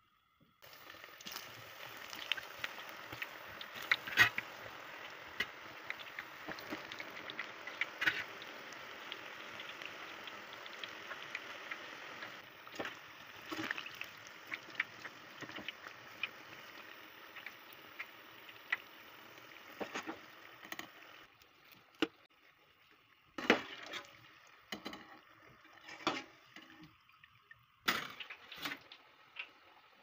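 Eggplant slices frying in hot oil: a steady sizzle full of crackling pops. About two-thirds of the way through the sizzle drops away, leaving a few scattered sharp clicks.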